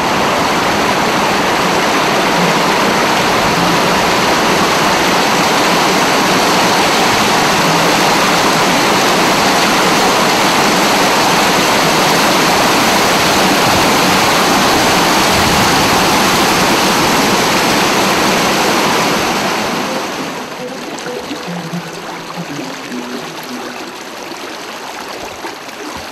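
Water rushing steadily down a steep concrete irrigation chute over rocks. About twenty seconds in it drops to a quieter flow along the narrow lined channel.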